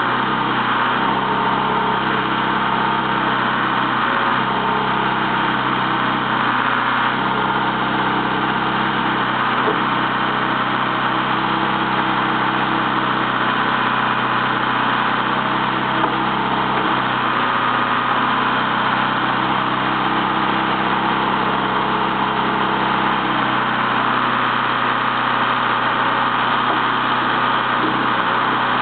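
Caterpillar 416B backhoe loader's turbo diesel engine running steadily while the backhoe boom and bucket are worked, with a thin high tone coming and going in the second half.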